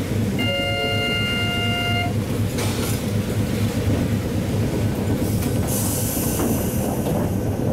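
Hakodate city tram running along its line, a steady low rumble of motor and wheels on rail, heard from on board. A steady pitched tone sounds for about a second and a half near the start, and a hiss comes in about six seconds in.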